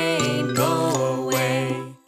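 Children's song: a singing voice over a bright, jingly backing track, cutting off suddenly at the very end.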